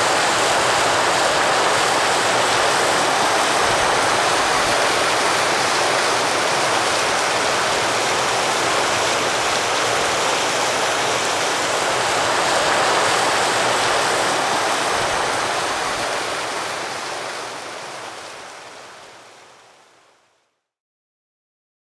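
Small mountain stream splashing down between boulders in a little cascade: a steady rushing of water that fades out over the last few seconds.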